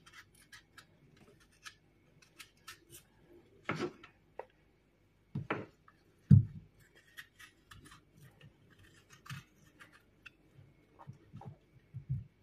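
Paring knife peeling an apple: small crisp cutting and scraping sounds of the blade through the skin and flesh. A few louder knocks come in between, the loudest about six seconds in.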